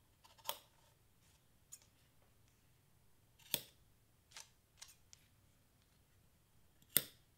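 Scissors snipping the fringe short: three sharp snips a few seconds apart, with a few fainter clicks of the blades between them.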